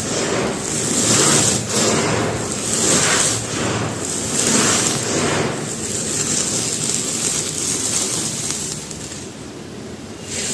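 Dry mud bricks crumbling, a gritty, crunchy rustle that swells about every second and a half and grows quieter near the end.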